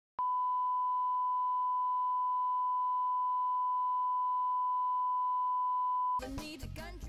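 Steady 1 kHz test tone of the kind that accompanies television colour bars. It starts a moment in and cuts off suddenly about a second before the end, when a jumble of other sound takes over.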